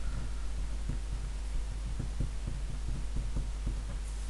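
Pen writing on a sheet of paper on a table: soft, irregular taps and scratches over a steady low hum.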